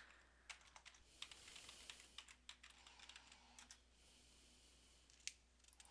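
Faint computer keyboard typing: a quick run of keystrokes over the first few seconds, with one more click about five seconds in.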